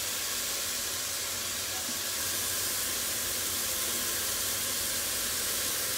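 Mushrooms sizzling steadily in a pot, frying fast over a very high gas flame so they don't release their water.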